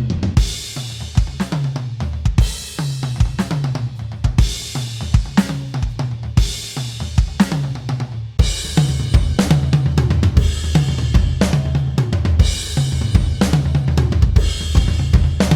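Sampled acoustic drum kit from an electronic drum module playing a groove of kick, snare, hi-hat and cymbals with tom fills. About eight seconds in there is a brief break before the playing resumes.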